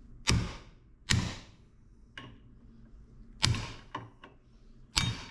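Hammer blows on a Dana 44 steering knuckle clamped in a bench vise, driving out the axle tube stub once the weld holding it has been ground through. Four loud metal strikes at uneven intervals, each with a short ring, with a few lighter knocks between.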